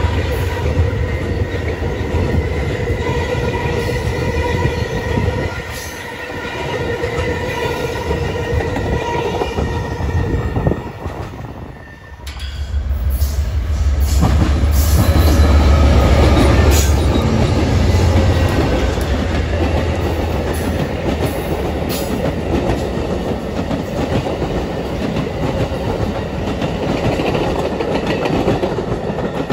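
Amtrak passenger trains passing close by. First the cars roll past with a steady high-pitched ringing over the wheel rumble. After a cut about twelve seconds in, a GE Genesis diesel locomotive comes up and passes with a deep engine rumble, followed by the clicking and running noise of its passenger cars.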